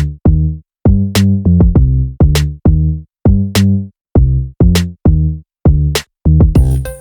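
Electronic background music with a drum-machine beat: short, deep, chopped bass notes separated by brief silences, and a sharp high hit about every second and a bit.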